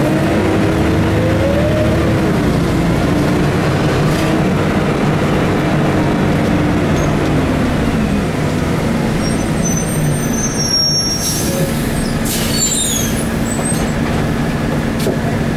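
Scania OSC11 11-litre six-cylinder turbo CNG engine of a rear-engined Scania L113CRB bus, heard from inside the cabin: the engine note rises as the bus pulls, drops as the ZF automatic gearbox shifts up, then runs steadily. About two-thirds of the way through come brief high squeaks and short hisses.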